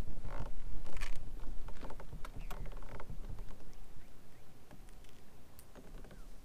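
Small clicks, rattles and scrapes of fishing pliers and a crankbait's hooks as they are worked out of a bass's mouth, busiest in the first three seconds and sparser after.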